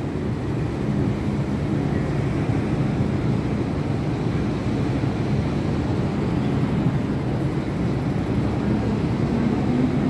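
MTR Island Line M-Train pulling out of an underground station platform, heard through the platform screen doors: a steady rumble of wheels and running gear, with a rising motor whine near the end as it gathers speed.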